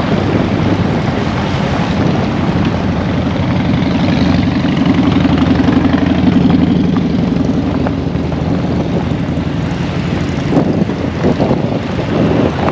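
A vehicle engine running steadily while under way, its low engine note plainest in the middle.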